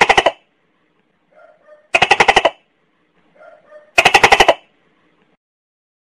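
A gecko calling with three bursts of rapid sharp clicking chirps, about two seconds apart, each burst around half a second of some eight quick notes, preceded by a few faint soft notes.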